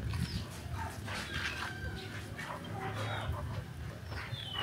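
Short animal calls in the background, some with falling pitch, over a low steady hum.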